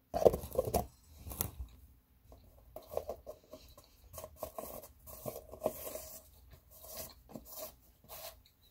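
Mouth noises of chewing a sticky peanut butter sandwich: irregular wet smacks and clicks, with a cluster of louder ones near the start.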